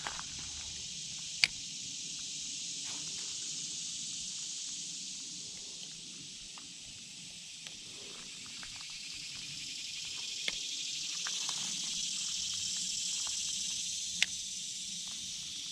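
Outdoor insect chorus: a steady, high-pitched buzzing hiss that swells and fades slowly. Three short, sharp clicks stand out, the loudest about a second and a half in.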